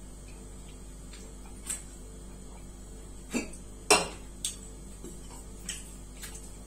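Half a dozen light clinks and knocks of a drink can and a ceramic plate being handled, the loudest about four seconds in as the can is set down on a hard surface.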